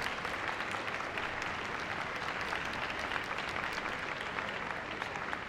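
Arena audience applauding steadily: dense clapping from many hands.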